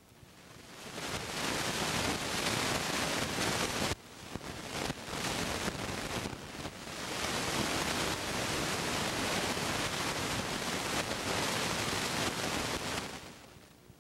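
Loud, steady rushing hiss with no tones in it. It swells up over the first second or two, cuts out sharply about four seconds in and flutters for a few seconds, then holds steady and fades away near the end.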